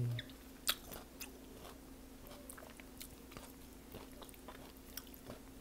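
Chewing of a crunchy Burmese tea leaf salad (lahpet thoke) close to an earbud microphone: scattered sharp crunches, the loudest a little under a second in, after the tail of a falling hummed "mmm" at the very start. A faint steady hum runs underneath.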